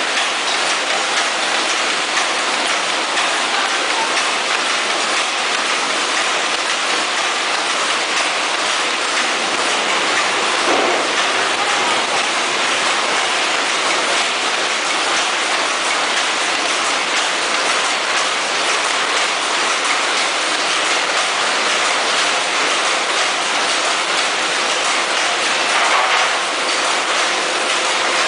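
Vertical sauce-sachet packing machines running together: a steady, dense mechanical clatter with fast ticking and hiss.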